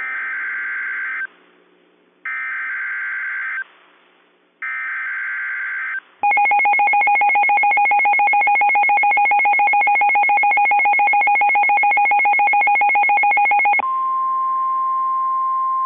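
Emergency Alert System activation for an Extreme Wind Warning. It opens with three short screechy bursts of SAME digital header data with brief gaps between them. Then the loud, buzzing EAS two-tone attention signal runs for about seven and a half seconds. About fourteen seconds in it changes to a single steady alert tone.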